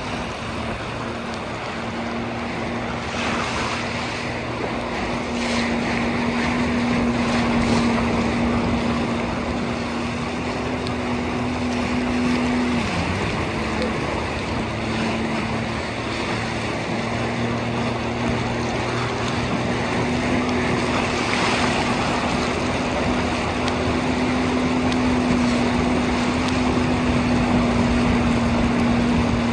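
Jet ski engine running steadily at speed as it tows, over rushing water from its wake and wind buffeting the microphone. About halfway through, the engine's pitch dips briefly and then comes back up, as if the throttle were eased and reopened.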